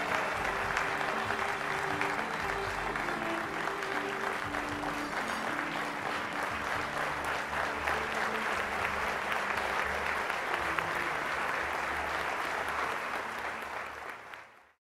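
Audience applauding, a dense run of clapping, with background music playing underneath. Both fade out shortly before the end.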